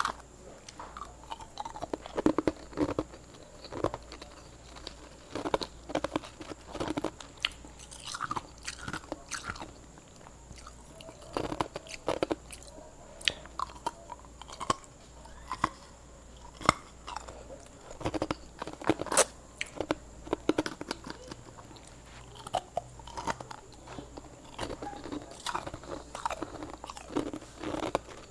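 Hard ice being bitten and chewed close to the microphone: sharp, irregular crunches that come in short runs with brief pauses between them.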